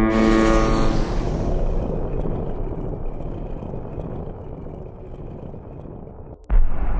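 A sudden loud hit with a brief ringing tone, fading into a long noisy rumble that slowly dies away over about six seconds; it cuts off abruptly near the end and a louder, deeper rumble starts.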